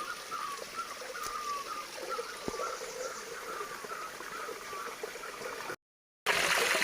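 Running stream water with a short chirping call repeated about twice a second. Near the end the sound cuts out for half a second, then the water comes back louder, splashing.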